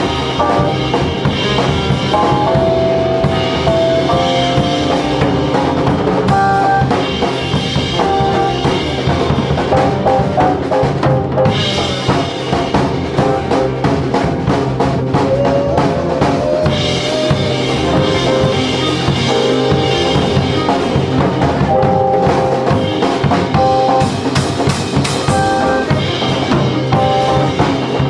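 Live band playing an instrumental passage: a drum kit with snare rimshots and bass drum keeps a steady beat under sustained melodic lines from the other instruments.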